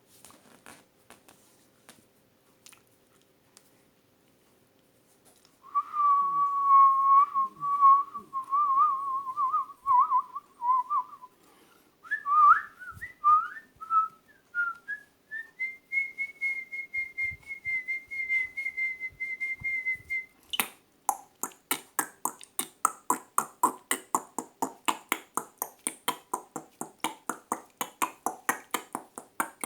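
A person whistling in imitation of birdsong: first a warbling whistle, then short chirping notes stepping up in pitch, then a long steady high whistle. About twenty seconds in, the whistle stops and a fast, even run of sharp clicks begins, several a second.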